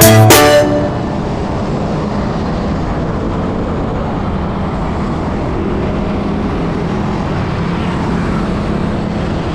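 Steady rush of wind and road noise with a low, even engine drone from a moving vehicle. A music track cuts off within the first second.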